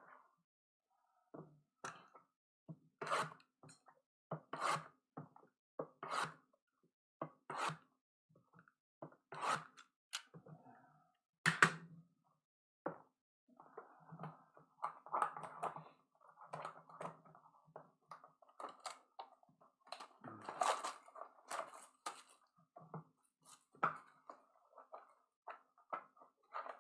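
Sealed trading-card boxes and their wrapping being handled and opened by hand: a series of short, sharp rustles and crinkles, one every second or two, then a longer spell of continuous crinkling about halfway through.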